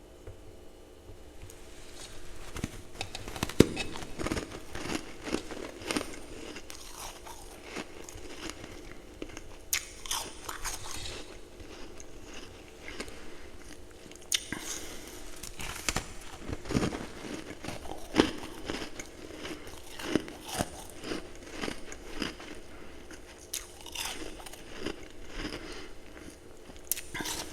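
A person biting and chewing ice close to the microphone: repeated crunches and crackles starting about two seconds in, at an irregular pace.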